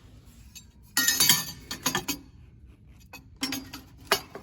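Metal parts clinking and clanking as the engine's cross bracket is set back in place: a quick cluster of clinks about a second in, then a few single clinks.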